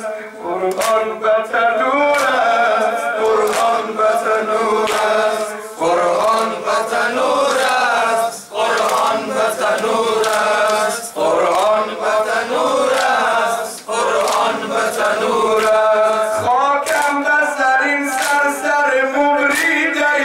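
A group of men chanting a Persian-language mourning noha in phrases of a few seconds. Their palms slap their chests (matam) in a steady beat of a little more than one slap a second.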